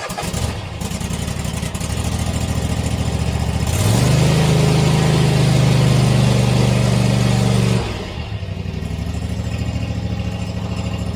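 Husqvarna MZ52 zero-turn mower engine running at a low speed, revved up about four seconds in, held higher and louder for about four seconds, then let back down to the lower speed.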